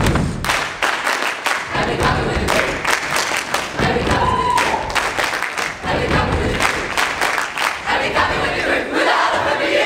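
A large group of school pupils chanting in unison, cut through with sharp claps and foot stamps.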